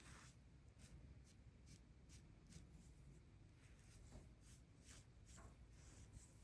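Near silence, with faint, soft scratchy strokes at irregular intervals, about one or two a second.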